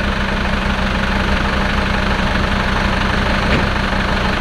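Land Rover Defender diesel engine idling steadily.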